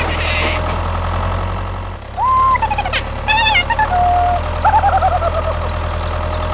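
Steady low engine hum, like a tractor running, with several high whistling, bird-like calls that glide mostly downward from about two seconds in.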